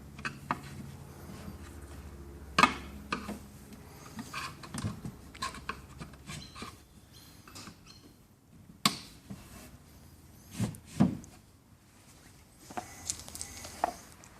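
Wooden cabinet parts knocked and rubbed against each other while they are being fitted: irregular sharp knocks, the loudest about two and a half seconds in, with softer scraping between them.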